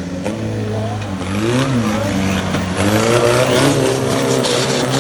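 Off-road 4x4 competition vehicle's engine running and revving, its pitch rising and falling twice.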